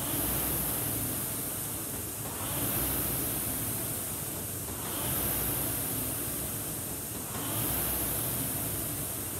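Concept2 rowing machine's air-resistance flywheel whooshing as it is rowed, swelling with each drive about every two and a half seconds: a steady rate of about 24 strokes a minute.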